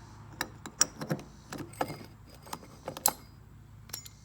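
Hand socket ratchet being worked: a string of sharp, irregularly spaced metallic clicks over a low steady hum.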